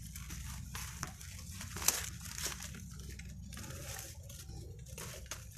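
Dry reed stalks crackling and rustling as they are pushed aside and trodden on, with a sharper snap about two seconds in.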